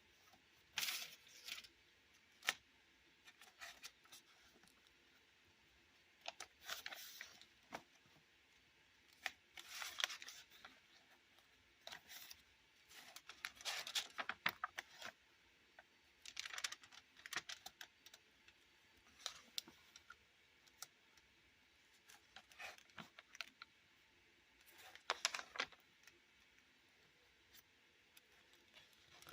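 Pages of an art journal being turned by hand, each turn a short papery rustle and crackle, repeated every few seconds with small clicks between.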